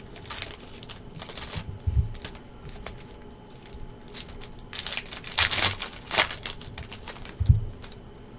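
Basketball card pack wrappers being torn open by hand, crinkling and ripping in short bursts, the longest tear about five and a half seconds in. Two dull thumps come near the two-second mark and near the end.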